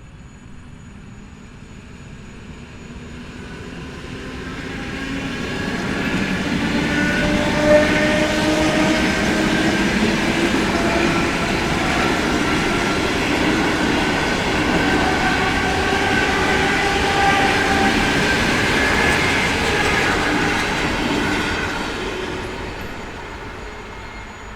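Electric commuter train (elektrichka) going by: it grows louder over a few seconds, runs loud for about fifteen seconds as a rumble with a whine of several steady and slowly sliding tones, then fades away. There is one sharp knock about eight seconds in.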